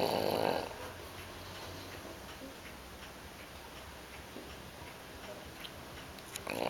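English bulldog puppy snoring: one snore ends about half a second in, then a pause of several seconds, and the next snore starts near the end.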